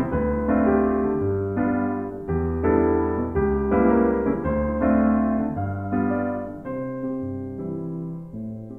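Slow background piano music: struck chords that ring and fade, changing about once a second, growing softer near the end.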